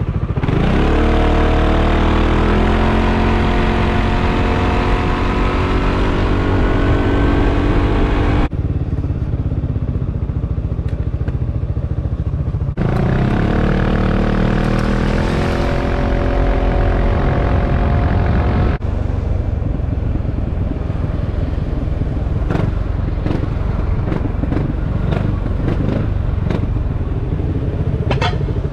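Yamaha XMAX 300 scooter's single-cylinder engine pulling away and accelerating twice, its pitch jumping up and then climbing slowly, with wind noise on top. The sound changes abruptly a few times. In the last third the engine runs lower, with scattered clicks near the end.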